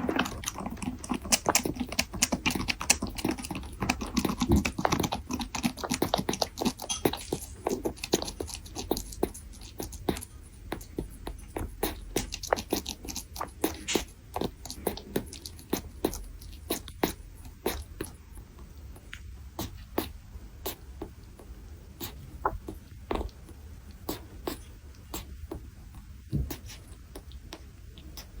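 Kitten drinking milk: a quick, irregular run of small wet smacking clicks, several a second.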